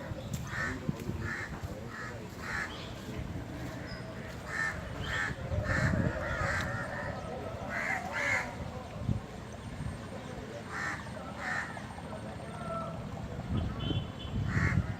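Crows cawing again and again in short, repeated calls, over a low rumbling background noise.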